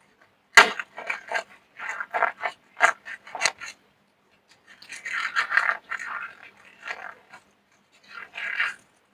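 Soap being crushed: a sharp crack about half a second in, then a run of short crunches, a longer crumbling, crackling stretch in the middle, and more crunching near the end.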